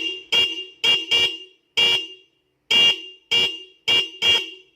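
A motorcycle's stock horn and an added higher-pitched treble horn, wired in parallel, sounding together in a string of about nine short honks with a pause a little before the middle. The low and high tones blend into a dual-tone 'stereo' car-horn sound, likened to a Toyota Avanza horn.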